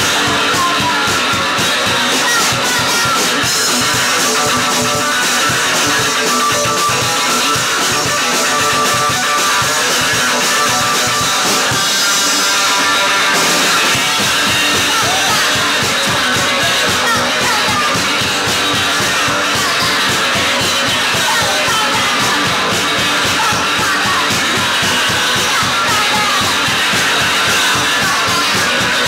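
Rock band playing: electric guitars and a drum kit, with a woman singing.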